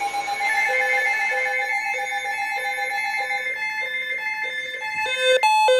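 Emergency Alert System alert tones: a steady electronic tone overlaid from under a second in by a rapid repeating beep, about two a second, loudest shortly before the end, ahead of a flood warning.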